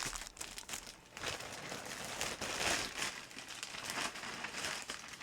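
Plastic bag being rustled and crinkled while it is emptied out, in a run of irregular rustles.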